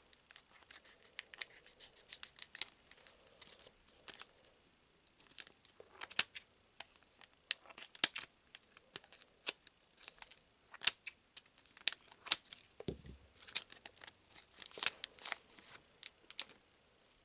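A foil trading-card booster pack being opened and its cards handled: irregular sharp crinkles, snips and clicks of the wrapper and cards.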